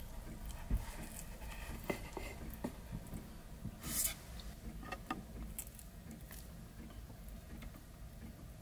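Quiet food-prep handling: a few light knocks and clicks of a kitchen knife and raw salmon on a wooden cutting board, with a short rustle about four seconds in as the sliced piece is moved.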